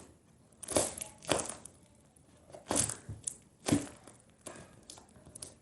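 Hands handling a foam squishy toy: four or five brief crackling, rustling sounds with quiet between them.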